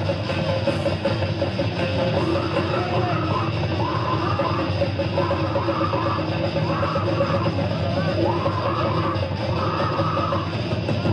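Death metal band playing live: heavily distorted electric guitars over a drum kit, with a figure that repeats about once a second from about two seconds in.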